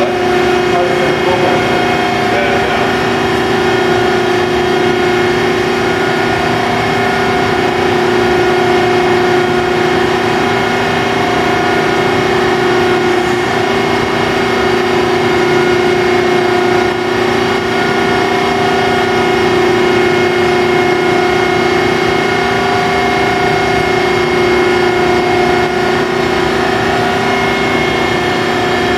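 The hydraulic pump and 12 hp motor of a 1999 Adira 165-ton CNC hydraulic press brake running, a steady, even whine that holds one pitch.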